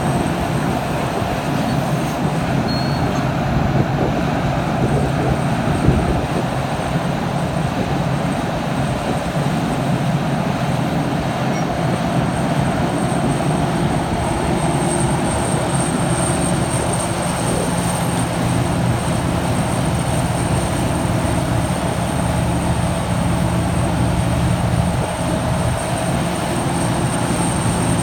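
Liebherr 974 crawler excavator's diesel engine running steadily under load as it digs and swings its bucket, with a couple of brief knocks about four and six seconds in.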